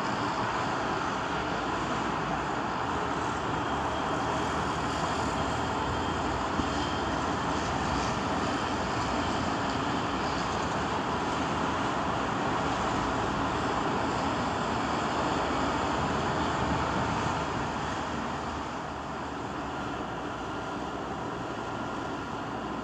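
Steady rushing noise of a moving cruise ship sound effect, with no bangs or breaks, growing slightly quieter about three-quarters of the way through.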